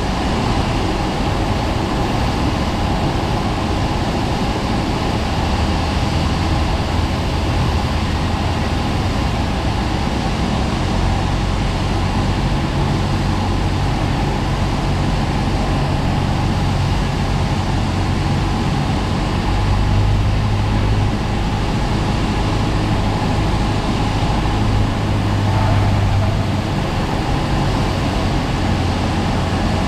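Cessna 172's piston engine and propeller running steadily in flight, a constant loud drone whose low note shifts slightly a few times.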